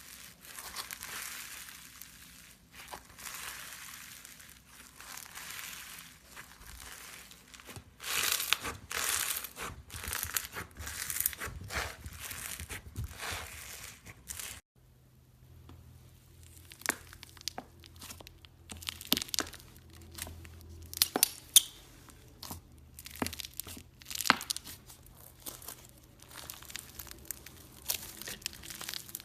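Crunchy slime being squeezed and kneaded, giving a dense crinkling crackle. About halfway through the sound cuts, and after that it comes as sharper, separate crackling pops.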